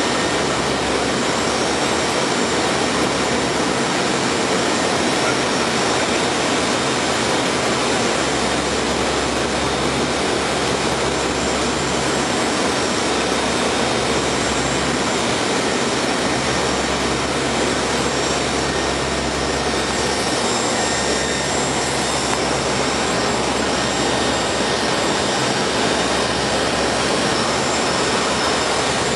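Steady cabin noise of a NOAA P-3 Orion's four Allison T56 turboprop engines in flight, heard from the flight deck: a loud, even rush with faint steady tones running through it.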